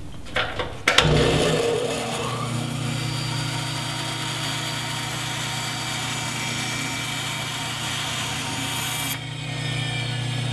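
Band saw with a half-inch blade ripping a wooden board fed along a fence. About a second in, the steady motor hum and cutting hiss come up; about nine seconds in, the cut ends and the hiss drops away while the saw keeps running.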